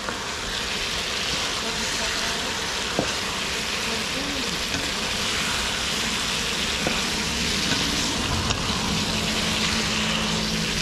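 Food stir-frying in hot oil in a pan, sizzling steadily, with a few light clicks from stirring. A low hum joins near the end.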